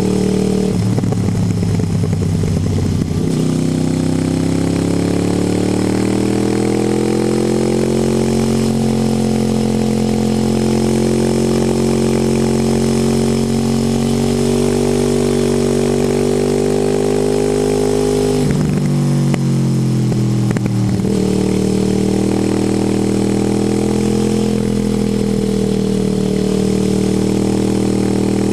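Motorcycle engine running under way on the road, the revs climbing and falling as the bike rides through bends. Twice, about a second in and again past the middle, the steady engine note breaks up for about two seconds before settling again.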